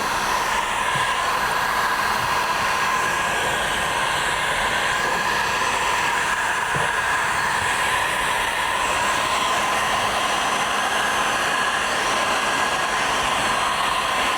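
Electric heat gun running steadily, its fan blowing with an even rush of air and a steady whine. It is post-heating freshly applied vinyl door skins to about 185 degrees so the adhesive sets.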